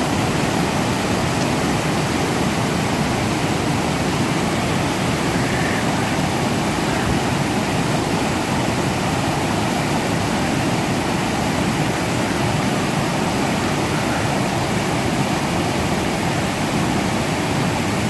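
Fast snowmelt creek cascading over rocks in whitewater: a steady, unbroken rush of water.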